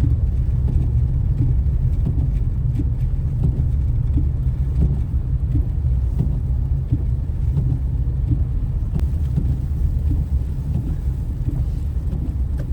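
Steady low road rumble of a car driving on a snowy freeway, heard from inside the cabin: engine and tyre noise.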